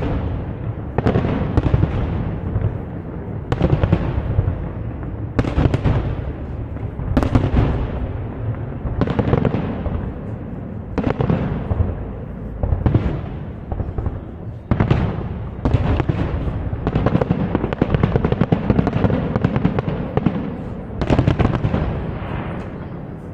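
Fireworks display: a rapid series of shell bursts, a sharp bang about every one to two seconds, each trailing off, over a continuous low rumble.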